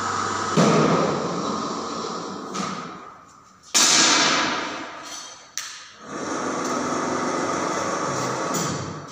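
Air rifles and air pistols firing in an indoor range: two loud shots, about half a second and four seconds in, each ringing briefly in the hall, a fainter one between them and a sharp click about five and a half seconds in. A steady noise follows for about three seconds.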